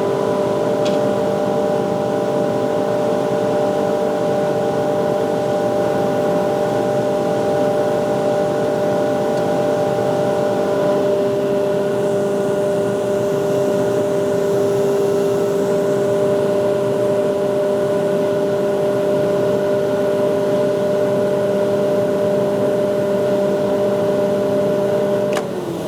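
Eaton 75 hp air-cooled rotary screw air compressor running with a loud, steady, tonal hum. Near the end there is a sharp click and the hum cuts out as the compressor shuts off.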